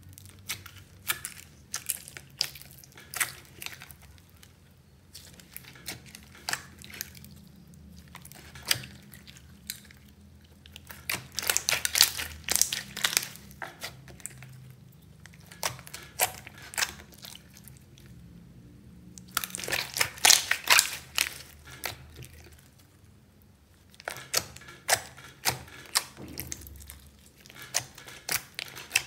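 Hands squeezing and kneading glossy clear slime mixed with beads, buttons and glitter: sticky crackling and popping clicks, coming in thicker flurries about a third of the way in and again past two-thirds.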